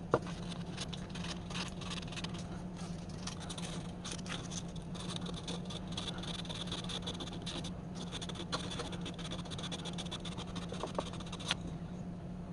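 Repeated scraping and rubbing, as of hand work on a tool or wood, over a steady low hum, with a few sharp clicks, the loudest right at the start and others near the end.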